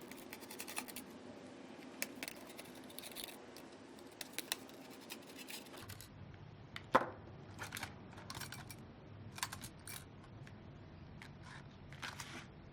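Light clicks and scrapes of screws and small metal brackets being handled as they are unscrewed and lifted off a ventilator's display, with one sharper click about seven seconds in.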